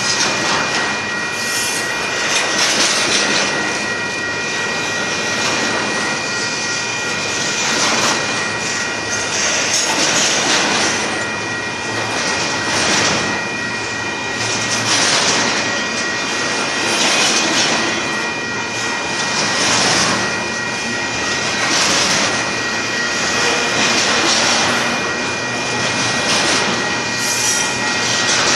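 Union Pacific double-stack container train rolling past a grade crossing: a loud, even rush of steel wheels on the rails that swells about every two seconds, with a steady high tone underneath.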